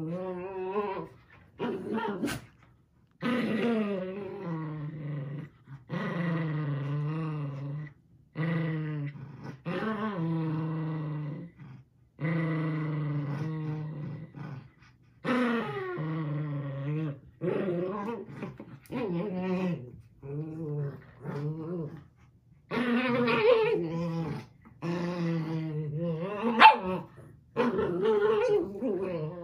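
Small papillon dogs play-growling as they tug on a plush toy together: a long run of drawn-out growls, one after another with short gaps, and a sharp yip near the end.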